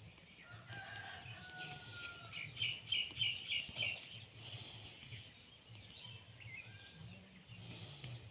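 Bird calls: one drawn-out call of about a second near the start, then a quick run of about six loud chirps around the middle, with fainter calls later.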